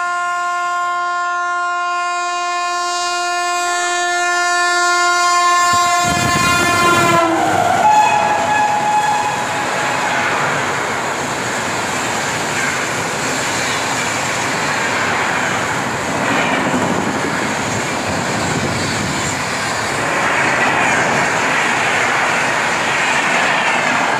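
Indian Railways express passenger train passing through a station at about 130 km/h. The locomotive's horn sounds a steady chord that drops in pitch about seven seconds in as the engine passes. Then comes the loud, continuous rush of the coaches' wheels on the rails and the air they push, which carries on as the rake goes by.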